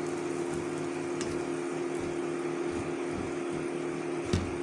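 Steady electrical hum of an induction cooktop running, with the soft scraping of a wooden spatula stirring dry gram flour in a non-stick pan and a light knock about four seconds in.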